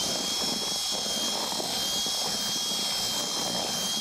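Electric drill with a paddle mixer running at a steady speed, stirring wet river groundbait, with a thin, constant high motor whine.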